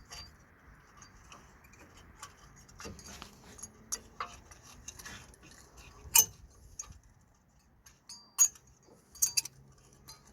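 A new front brake pad being worked into a BMW 1 Series caliper bracket: irregular light metallic clicks and taps of the pad's backing plate against the bracket's clips, the sharpest about six and eight seconds in.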